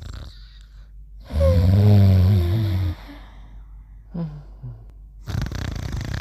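Animated characters snoring: a loud, low rumbling snore with a falling tone lasting about a second and a half, a brief short sound about four seconds in, then the next, breathier snore starting near the end.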